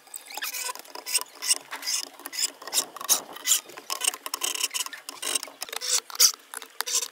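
Cordless drill driving small screws into thin plywood panels, a rapid run of short clicking bursts.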